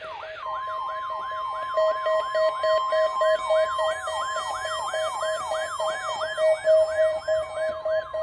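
NOAA Weather Radio warning alarm test: a steady high tone near 1 kHz, the broadcast warning alarm tone, starting about half a second in, layered with an electronic siren-like alarm that sweeps down about three times a second and a lower pulsing beep.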